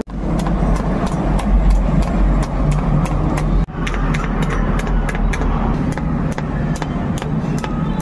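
Toyota Vios four-cylinder engine running through an aftermarket HKS muffler on a re-elbowed exhaust pipe, a steady deep exhaust rumble that drops out sharply twice, at the start and near the middle.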